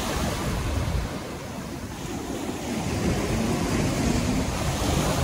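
Small ocean waves breaking and washing up the sand at the water's edge, a steady rushing surf, with wind buffeting the microphone.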